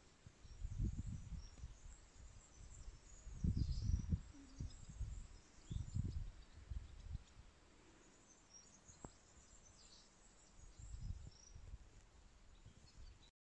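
Outdoor ambience: wind buffeting the microphone in irregular low rumbling gusts, with faint bird chirps in the background.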